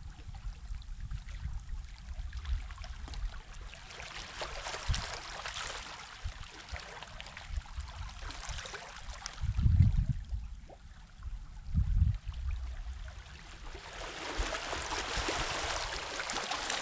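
Sea waves washing onto the shore: a hiss that swells and fades three times. Two low rumbling bumps come near the middle, the first of them the loudest sound.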